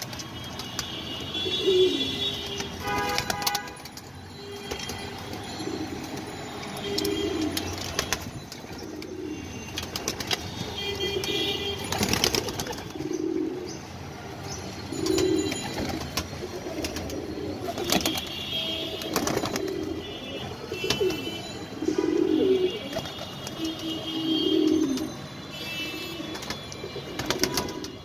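A flock of domestic pigeons cooing, low coos repeating every second or two, with occasional sharp clicks and knocks among them.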